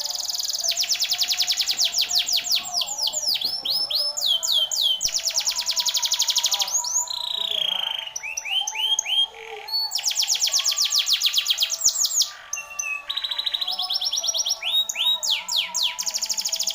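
Domestic canary singing: long, fast trills of rapidly repeated notes alternating with runs of downward-sweeping syllables, with brief pauses about eight and twelve seconds in.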